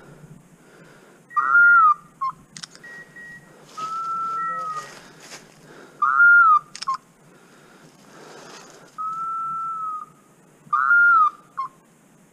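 A dog whistle blown in a repeating pattern: a short warbling blast with a quick pip after it, then a long steady note, three blasts in all, signalling hunting dogs.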